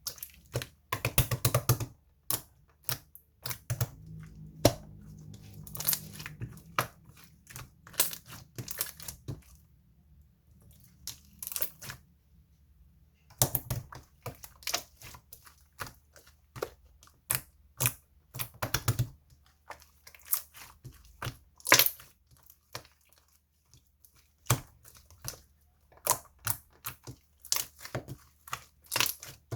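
Irregular sharp clicks and crinkling noises, several a second, with a break of a few seconds just after the middle.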